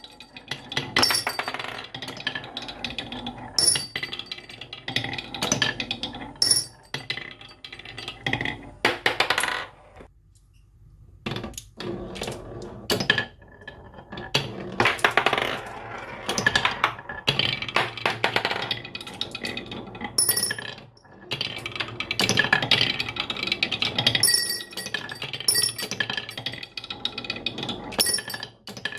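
Marbles rolling and clattering down a marble run's tracks, with many sharp clicks and some ringing clinks. The run goes nearly quiet for a moment about ten seconds in, then the clatter picks up again.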